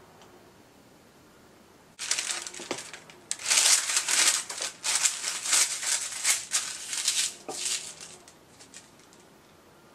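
A sheet of baking parchment crinkling and rustling in quick bursts as hands spread it and press it flat on a baking tray. It starts suddenly about two seconds in and dies away near the end.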